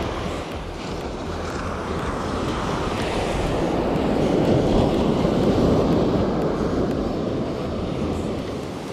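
Surf breaking and washing up the beach, a steady rush that swells to its loudest around the middle and eases off, with wind buffeting the microphone.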